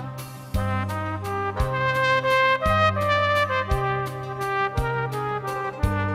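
Solo trumpet playing a melody of held notes over a backing track with a bass line and a steady beat.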